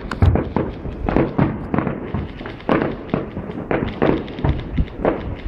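Aerial fireworks shells bursting in a rapid, irregular string of bangs, several a second and overlapping.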